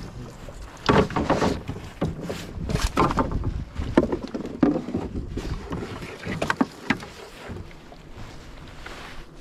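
Irregular knocks and bumps on a wooden rowboat's hull and boards, with rustling, as a landing net holding a pike is hauled aboard and set down in the boat. The loudest knocks come about a second in and about four seconds in.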